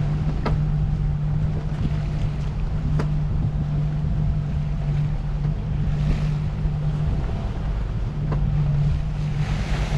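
Sailboat underway at sea: wind buffeting the microphone and water washing along the hull, over a steady low hum.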